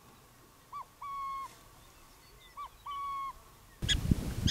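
Burrowing owl giving its two-note coo call twice, a short hooked note followed by a longer level hoot. Near the end a steady rushing outdoor background comes in.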